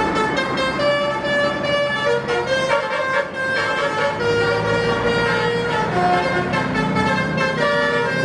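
Basuri 'telolet' musical bus horn playing a melody: a run of steady horn notes, each held a fraction of a second before jumping to another pitch.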